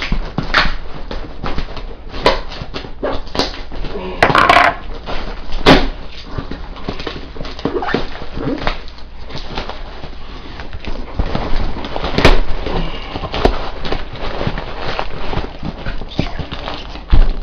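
Cardboard shipping box being cut and torn open: a knife slicing through tight packing tape, with tape and flaps pulled loose. Dense scraping and crackling throughout, with a few louder knocks and rips.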